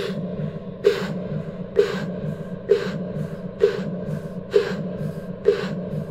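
Intro music: a low, steady droning hum with a short breathy hit about once a second, in an even slow pulse.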